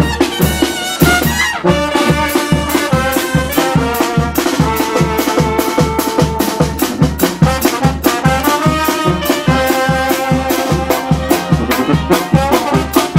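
Brass band playing a lively dance tune, trumpets and trombones over a steady, driving drum beat.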